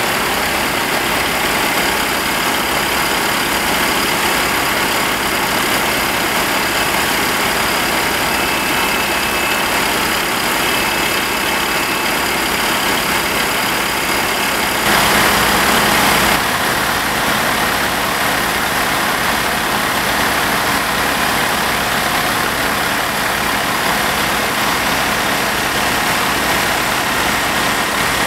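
Fire engine's engine and pump running steadily at the fire scene. About fifteen seconds in there is a brief, louder rush of noise.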